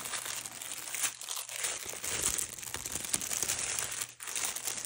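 Small plastic bags of diamond painting drills crinkling as they are handled and sorted through by hand.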